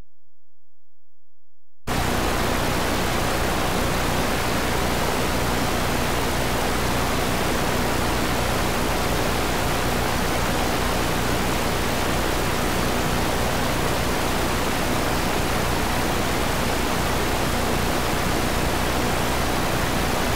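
Loud, steady static hiss from a videotape playing on past the end of its recording into blank, unrecorded tape. The hiss cuts in suddenly about two seconds in.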